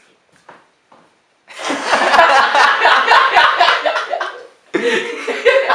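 People bursting out laughing, loudly and at length, starting about a second and a half in, then a fresh burst of laughter near the end.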